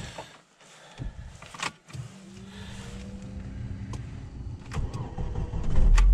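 Lada Niva Travel's 1.7-litre four-cylinder petrol engine being started from cold: the ignition clicks on, and an electric whine rises and then holds for a couple of seconds as the fuel pump primes. The starter then cranks briefly, and near the end the engine catches with a loud low rumble.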